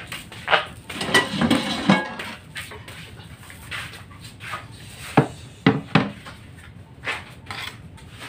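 Clatter and sharp knocks of kitchenware and a board being set down on a wooden table: a busy cluster in the first two seconds, then single knocks about five, six and seven seconds in.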